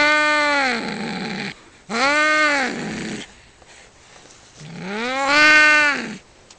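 Domestic cats yowling in a fight: three long, drawn-out yowls, each rising and then falling in pitch, with short pauses between them.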